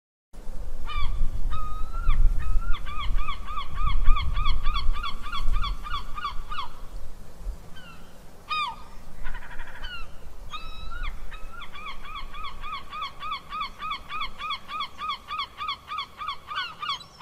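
Gulls calling in two long runs of rapid, evenly spaced calls, about four a second, with a few single calls between the runs midway. A low rumble lies underneath, strongest in the first half.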